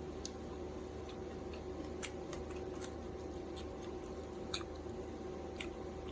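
Scattered soft, wet mouth clicks and smacks of someone chewing dal and rice, the sharpest about four and a half seconds in, over a steady low hum.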